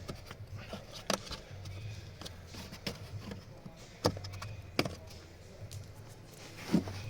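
Sharp clicks and knocks of parts being handled during a cabin filter change, four of them spread a second or more apart, over a low steady hum.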